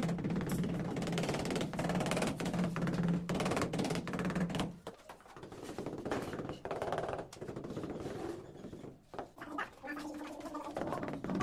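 Rubber mallet tapping ceramic wall tiles to bed them into the tile adhesive: many quick, repeated knocks, with a short lull a little before the middle.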